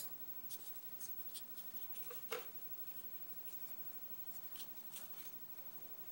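Faint scattered clicks and light scrapes of a Kwikset lock's small metal parts being handled while its pins are taken out, with a slightly louder click a little over two seconds in.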